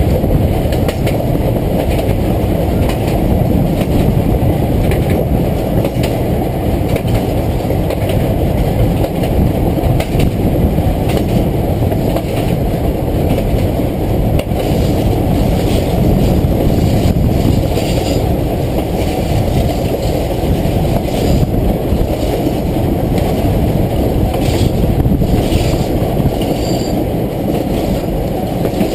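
Hershey electric train running along the track, heard from the cab: a steady low rumble and rattle of wheels on rail, with scattered sharper clicks and knocks.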